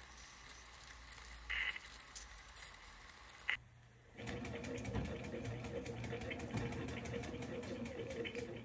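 1917 Bing toy steam engine with its boiler at almost two bar. At first there is a faint hiss with two short louder hisses. About four seconds in, the flywheel is spun by hand and the engine starts, running fast with a rapid, even clatter as it drives a belt to a small motor used as a generator.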